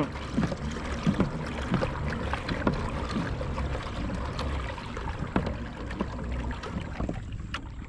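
Water lapping and trickling against a moving kayak's hull, with many small irregular splashes and taps over a steady low rumble.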